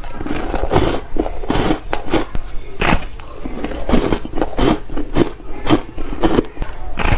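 Crushed ice being bitten and chewed close to the microphone: a run of sharp, crisp crunches, about two to three a second.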